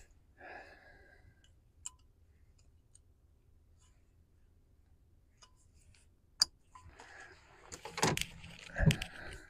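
Metal tools and parts being handled: a few scattered clicks, a sharp click about six and a half seconds in, then clinking, clattering knocks near the end.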